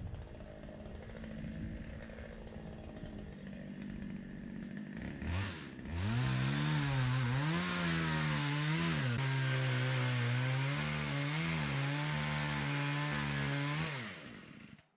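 Small chainsaw running at low speed, then opened up from about six seconds in and cutting into a large tree, its engine pitch dipping and recovering under load. It winds down and stops just before the end; the owner says the saw's exhaust has gone.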